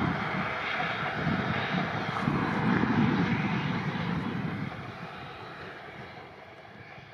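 Two coal-fired narrow-gauge Rio Grande K-36 steam locomotives working a double-headed passenger train: a steady rumble and hiss of exhaust and running gear with uneven low pulses, fading away over the last couple of seconds.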